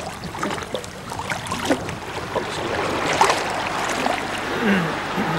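Water splashing and sloshing in irregular strokes as legs in waders wade through a shallow stream, over the stream's steady flow.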